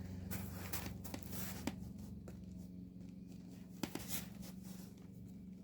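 Handling noise from a box being moved, likely onto a scale to be weighed: light rustling with a few short knocks, over a steady low hum.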